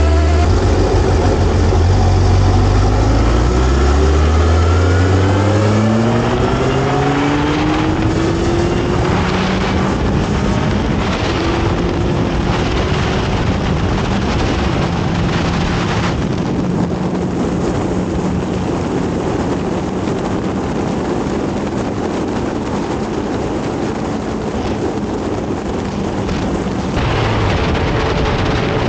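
Kawasaki ZX-12R's inline-four engine accelerating hard. Its note climbs steeply over the first several seconds and again shortly after ten seconds, then holds a steady drone at cruising speed under loud wind rush. Near the end the engine note drops.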